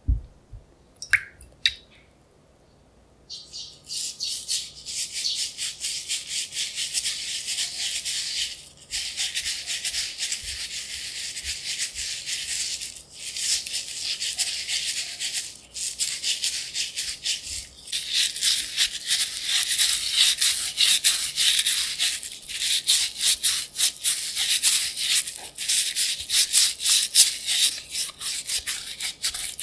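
An orange's peel scrubbed by hand with salt to clean it: a fast, gritty, scratchy rasp that starts about three seconds in, after a few light knocks, and carries on with brief pauses.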